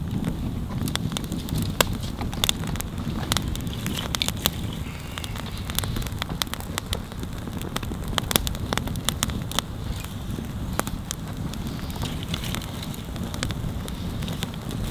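Wood campfire crackling, with many sharp pops and snaps scattered irregularly over a low steady rush.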